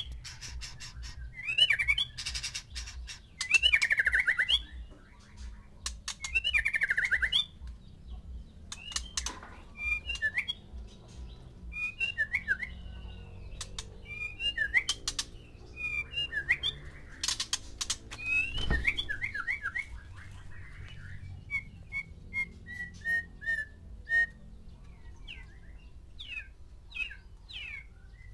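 White-rumped shamas singing and calling: loud, rich song phrases about every two seconds at first, then quieter scattered whistled notes and chirps, with a quick run of short notes later on.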